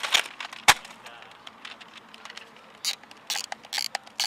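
Disposable film camera's plastic shutter clicking, then its film-advance thumbwheel being wound, a run of quick ratcheting clicks in the second half.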